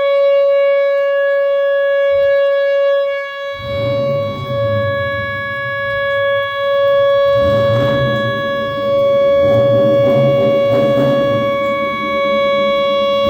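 Outdoor tornado warning siren sounding one long steady tone at full pitch. From about four seconds in a low rumbling noise runs underneath it.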